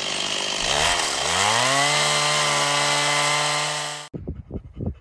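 Chainsaw revving up and then running at a steady high pitch while cutting out the dry, dead wood of an old olive tree; it cuts off suddenly about four seconds in.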